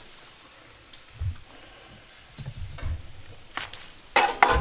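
Green peppers sizzling faintly on a gas grill's grate, with metal tongs clicking and scraping against the grate near the end as they turn the peppers.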